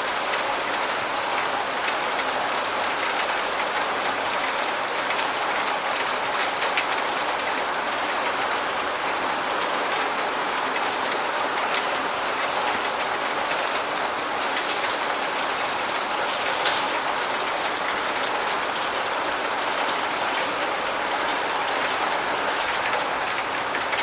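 Medium rain falling steadily, a continuous even hiss with scattered sharper drop ticks.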